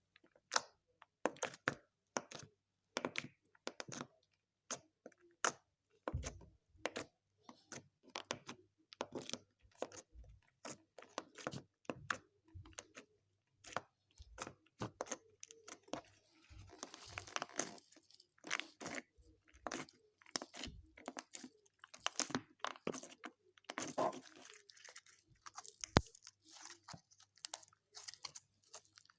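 Homemade slime being squished and kneaded by hand: irregular wet clicks and pops, with stretches of denser crackling in the middle.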